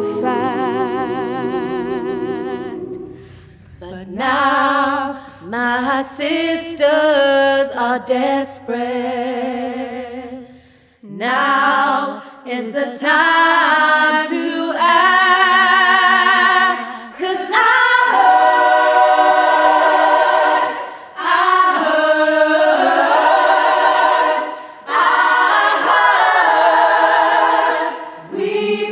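Women's choir singing a cappella. A lone female voice holds a wavering note at the start, then phrases come with short pauses between them, and from about twelve seconds in the fuller choir sings.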